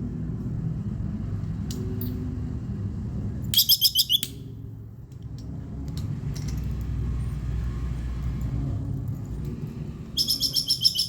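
Plantain squirrel giving its rapid chattering 'kekes' alarm call in two short bouts of quick high chirps, about ten a second. The first bout comes near four seconds in and the second near the end. A steady low rumble runs underneath.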